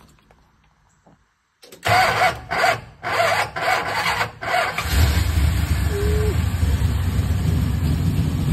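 1970 Dodge Coronet's 383 big-block V8, after sitting for a year, cranked over in a string of uneven bursts, then catching about five seconds in and running steadily through its factory single exhaust. The owner reckons it is running on only five or six cylinders.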